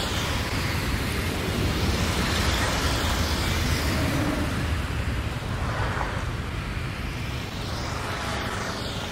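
Steady road traffic noise: vehicle engines and tyres on a street.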